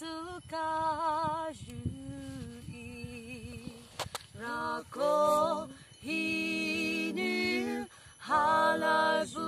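A woman and a man singing a slow song together a cappella, with long held notes and short breaks between phrases; from about six seconds in the two voices sound together in harmony.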